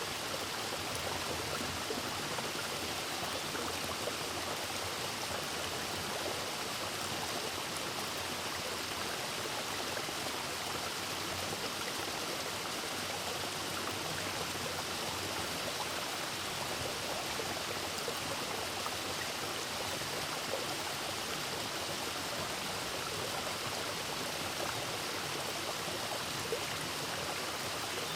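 Steady rush of water from a small mountain waterfall and its rocky stream, an even, unbroken wash with no changes.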